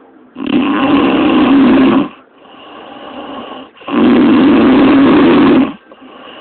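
A woman snoring heavily in her sleep: two loud, rasping snores a few seconds apart, each lasting about a second and a half, with quieter breaths between them in a steady rhythm.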